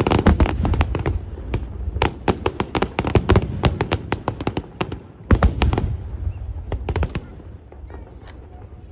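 Aerial fireworks shells bursting in rapid volleys of sharp bangs and crackles. A fresh cluster of bangs comes about five seconds in, and the bursts thin out near the end.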